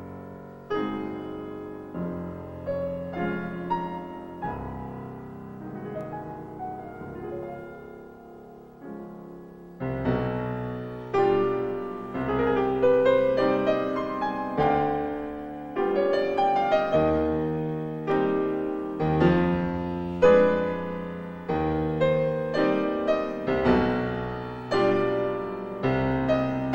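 Solo grand piano playing, softly at first and then louder from about ten seconds in, each note struck and dying away in the hall.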